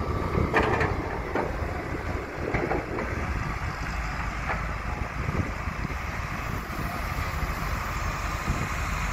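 Caterpillar hydraulic excavators' diesel engines running steadily under work, a low rumble with a few metallic clanks in the first few seconds.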